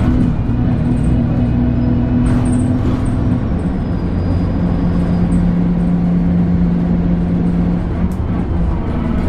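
ADL Enviro 300 single-deck bus running, with a steady droning whine that steps down in pitch about three and a half seconds in. This is the kind of weird grinding noise this bus makes.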